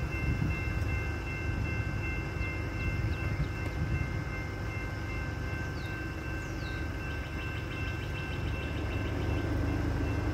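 A slow-moving train's locomotive rumbles as it approaches a grade crossing, growing a little louder near the end, while the crossing's warning bell rings steadily over it. No horn is sounded.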